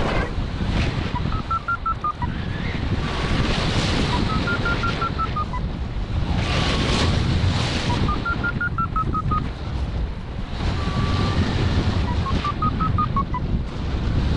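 Wind rushing over the microphone in flight, with a paragliding variometer beeping: runs of quick short beeps every few seconds, the pitch stepping up and back down within each run, as it does in rising air.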